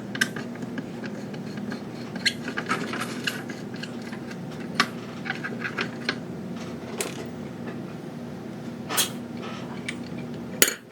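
Small parts and tools being handled on a workbench: scattered clicks and taps of plastic and metal, over a steady low hum that cuts off near the end.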